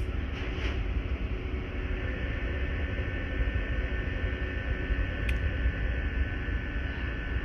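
Steady mechanical hum and whir from a Siemens Symbia S SPECT gamma camera's gantry, with a thin motor whine coming in about two seconds in and a faint click a few seconds later.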